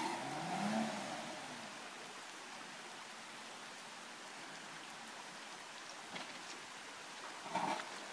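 Steady rush of a flooded, muddy creek. Over it the Jeep Wrangler's engine rises briefly in a short rev about a second in, and a brief sharper sound comes near the end.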